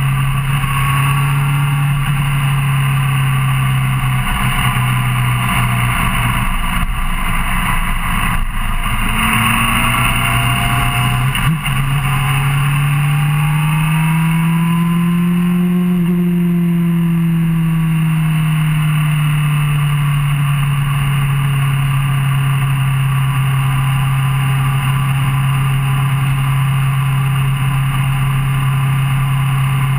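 Suzuki GSR600 inline-four motorcycle engine running steadily at highway cruise, with wind and road noise. Its note climbs as the revs rise, peaking about midway, then settles back to the cruising pitch. There is a brief knock about eleven seconds in.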